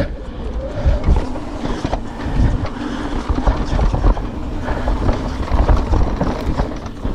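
YT Decoy e-mountain bike rolling fast down a dirt forest trail: tyre rumble with a continuous clatter of chain and frame over bumps and roots. A steady hum joins about two seconds in.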